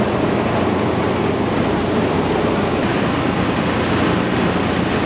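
Steady rushing noise of strong wind and rough sea, with a faint low hum underneath.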